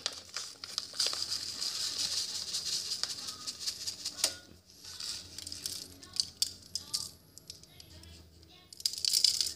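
Dry seasoning rattling and crinkling as a small plastic packet is shaken and tipped into a hand, with a loud burst of shaking just before the end.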